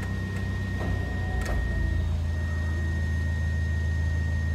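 Electric sliding sunroof motor of a 1997 Subaru Sambar Dias II running with a steady low hum as it slowly closes the roof glass, with one sharp click about one and a half seconds in. The roof is sluggish to come back, which the owner thinks could be cured with grease.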